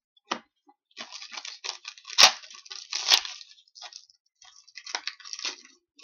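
Hockey trading cards being handled and flipped through by hand, giving irregular crinkly rustling with two sharper snaps about two and three seconds in.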